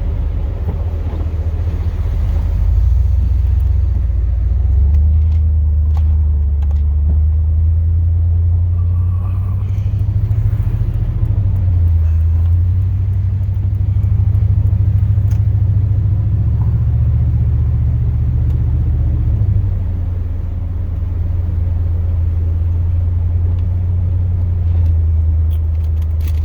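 A 2002 Chevrolet Silverado's 8.1-litre big-block V8 running under way as the truck drives off: a steady low rumble whose pitch shifts up and down a few times with speed and gear changes.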